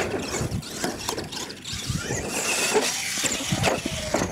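Radio-controlled monster truck's motor whining as it speeds up across the dirt, then a few sharp knocks near the end as the truck tumbles over.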